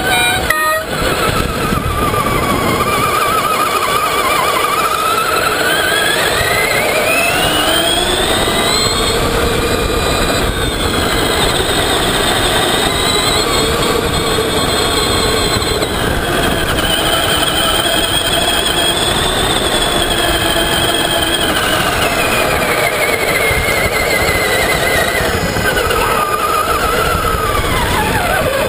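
Traxxas Summit RC truck's electric motor and gears whining as it drives on sand, over a steady rush of noise. The whine rises in pitch as the truck speeds up a few seconds in, holds, then falls away near the end as it slows.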